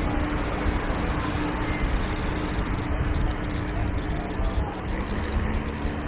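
Steady hum of a distant engine over a dense rushing of surf and wind; the hum shifts lower in pitch near the end.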